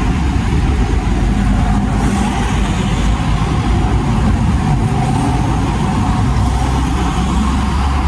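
Steady low rumble of motor vehicles on a highway, engines and road noise running without a break.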